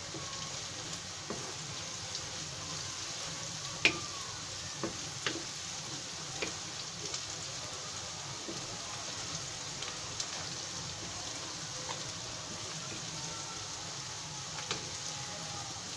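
Sliced onions sizzling in hot oil in a frying pan while a spatula stirs them through. Scattered light clicks of the spatula against the pan cut through, the sharpest about four seconds in.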